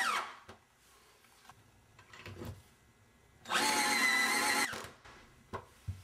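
Cordless power drill/driver driving wood screws through a brass floor plate: the motor whine drops in pitch and stops just as it opens, then a second run of about a second comes a little past halfway. A couple of light knocks follow near the end.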